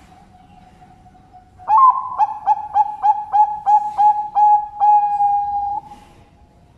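Zebra dove (perkutut) singing one song phrase: an opening coo, a quick run of about nine short staccato coos, about three a second, ending in one long held note.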